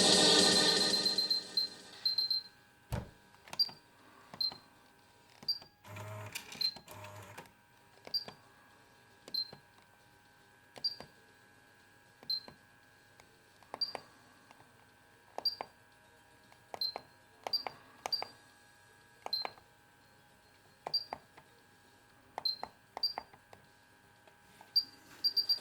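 Pioneer KEX-P820RDS car stereo's key beeps as its buttons are pressed one after another: a short, high beep with a click every second or so, irregular. The radio's sound is muted in between except for a brief burst of noise about six seconds in.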